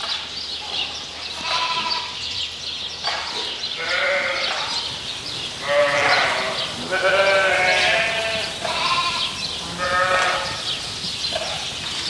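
A flock of shorn ewes bleating: a string of about six calls, each around a second long, from several sheep, some overlapping.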